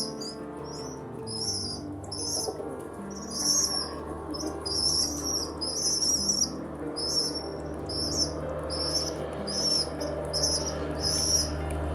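Small birds chirping: short, high-pitched chirps repeated one or two times a second throughout, over soft background music with held notes.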